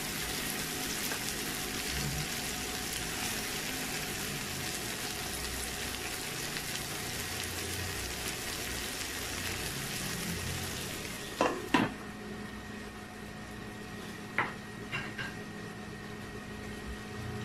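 Shrimp, butter and garlic sizzling in a non-stick frying pan, stirred at first with a wooden spatula. About two thirds of the way through, a couple of loud knocks come as a glass lid is set on the pan. After that the sizzle is muffled and a low steady hum runs under it.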